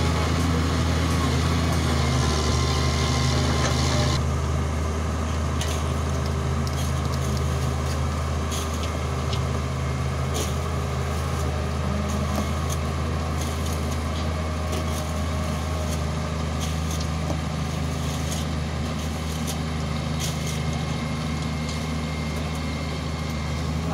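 Hitachi Zaxis 350 excavator's diesel engine running steadily with a deep, even hum. About four seconds in, the higher hiss drops away, and faint sharp clicks come and go over the engine.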